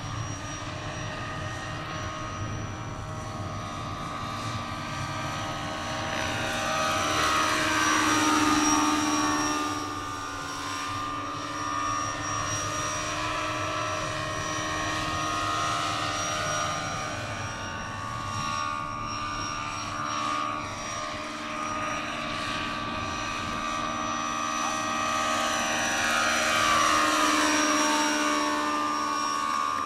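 Large-scale electric RC model of an AgustaWestland EH101 helicopter in flight: steady rotor and drive whine. It flies past twice, about a third of the way in and again near the end, each time growing louder and then falling in pitch as it goes by.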